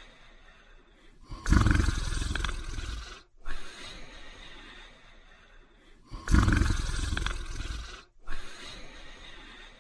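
A sleeping person snoring loudly: two rasping snores about five seconds apart, each lasting under two seconds, each followed by a short sharp breath and a quieter breath.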